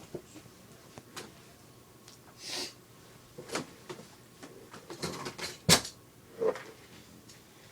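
Scattered knocks, clicks and rustles of objects being handled and knocked about, with one sharp, loud knock a little before six seconds in.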